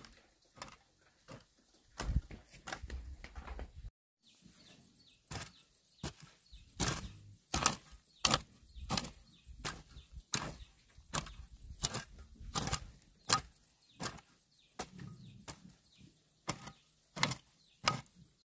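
A steady series of sharp strikes, about three every two seconds, with a brief break about four seconds in.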